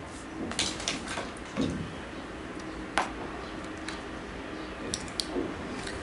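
Handling sounds of a book being picked up and readied for reading: scattered light clicks and knocks, a sharper click about three seconds in and two quick high ticks near the end.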